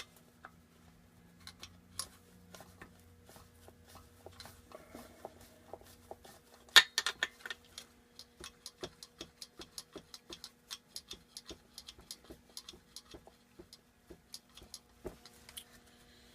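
Hand ratchet wrench clicking as bolts are worked loose on a Briggs & Stratton small engine. There is a sharp metal clack about 7 seconds in, then a long run of even ticks, about three a second.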